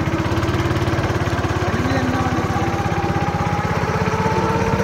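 Motorcycle engine running steadily close by, a rapid, even putter.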